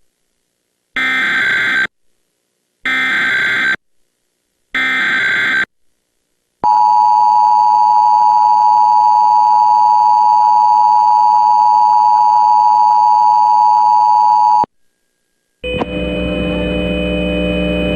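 Emergency Alert System interruption. First come three short, harsh bursts of the digital SAME header data tones, each about a second long. After a pause the steady two-tone attention signal sounds for about eight seconds and cuts off abruptly. About a second later a steady low hum begins, ahead of the spoken Amber Alert.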